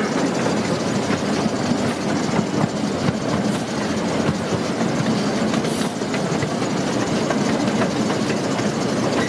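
Zoo train rolling along its track, heard from aboard: a steady rumble with the clickety-clack of the wheels.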